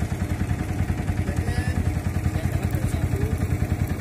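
A small boat's engine running steadily under way, a fast, even low throb of about eight beats a second.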